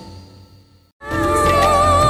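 Background score fading out, a brief moment of silence, then the serial's closing theme music starting suddenly about a second in, with a sustained, wavering melody over a steady bass.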